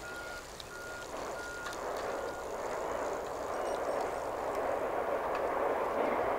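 An electronic reversing alarm beeps steadily at one pitch, about three beeps every two seconds, and stops a little over two seconds in. Meanwhile a rushing rumble builds steadily louder and becomes the loudest sound.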